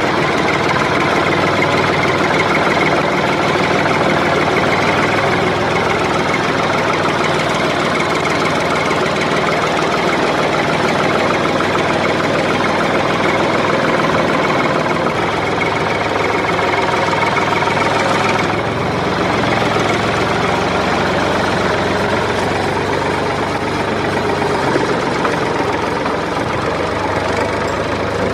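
Tractor engine running steadily, with a slight shift in its tone about two thirds of the way in.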